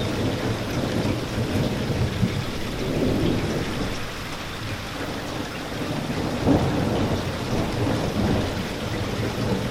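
Steady rain falling, with a low rolling rumble of thunder underneath that swells and fades, and one sudden louder hit about six and a half seconds in.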